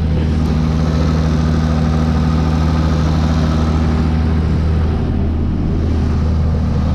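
Deutz-Fahr tractor's diesel engine running steadily, heard from the cab.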